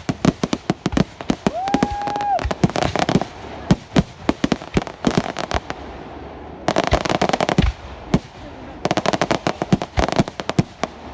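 Fireworks going off: a rapid run of sharp bangs with bursts of dense crackling. A short, steady whistle sounds about two seconds in.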